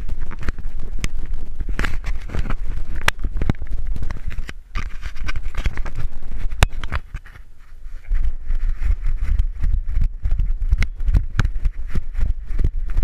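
Knocking, scraping and low thumping of a GoPro strapped to a dog's back as the dog is handled and then sets off running, each stride jolting the mount. The noise eases briefly a little past the middle.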